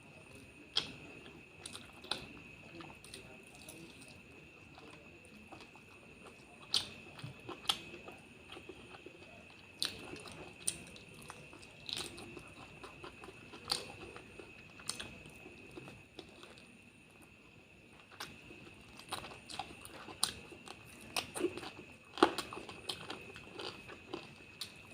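Close-miked mouth sounds of someone eating curry and rice: chewing with irregular sharp wet clicks and smacks, a few louder about 22 seconds in. A faint steady high whine sits underneath.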